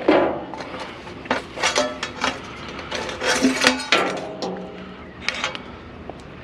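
Scrap metal pieces being handled and dropped, a string of irregular clanks and clatters with short metallic rings.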